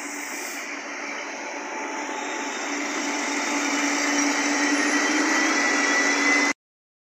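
Adelaide Metro 3000-class diesel railcar running along the platform close by, growing steadily louder as it draws alongside, with a steady low hum under its engine and wheel noise and a thin high whine that strengthens near the end. The sound cuts off suddenly about six and a half seconds in.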